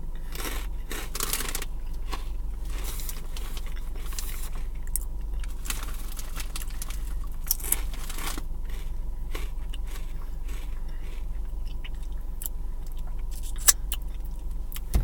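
Someone chewing crunchy Cheetos cheese puffs close to the microphone: irregular crisp crunches and crackles over a steady low hum, with one sharp click near the end.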